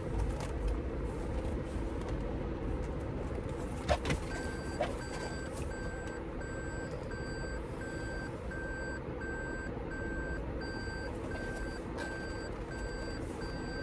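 A car in reverse gear: a sharp click about four seconds in, then the car's in-cabin reverse warning beeping at an even pace over the low hum of the cabin.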